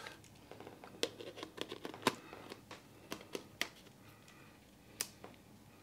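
Quiet handling of a Fujifilm X-T3 camera body and XF 16-55mm f/2.8 lens as the lens is mounted: a scattered string of small sharp clicks and taps, with faint handling noise between.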